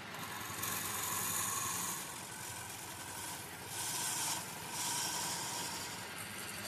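Chisel scraping a green bamboo tube as it spins on a lathe, in several long scraping passes of about a second each, over the steady hum of the lathe running.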